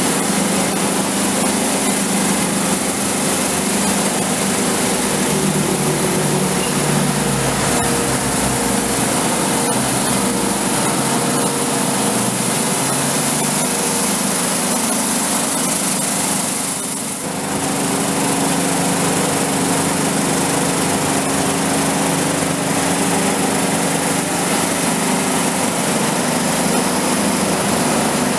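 Grain sorting machine running steadily, its vibrating sieve tray and cleaning blower fan making a continuous mechanical hum and hiss. The sound dips briefly about two-thirds of the way through.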